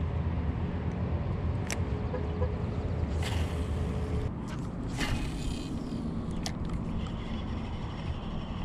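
Steady low wind rumble on the microphone, with a few sharp clicks spread through it.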